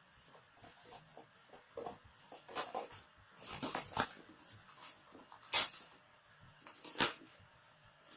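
Irregular rustling and clicking of things being handled, with two sharper, louder knocks about five and a half and seven seconds in.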